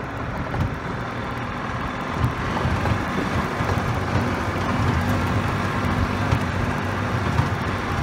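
Golf cart running as it drives along a gravel and dirt trail, a steady low hum that grows a little louder about two seconds in.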